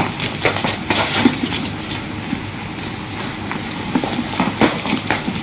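A woman's quick footsteps, shoes tapping irregularly on the floor, over the steady hiss of an old optical film soundtrack.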